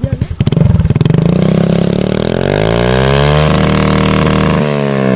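Modified Honda Dio scooter's single-cylinder engine revved through an aftermarket exhaust. It goes from idle pulses into a rev that climbs steadily from about half a second in, holds high, then eases off near the end.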